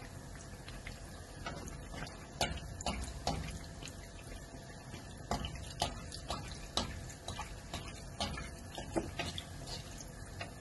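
Breadcrumbed bread pocket deep-frying in hot oil in a kadai: a steady sizzle with scattered sharp crackles and clicks as a slotted metal spatula works it in the oil.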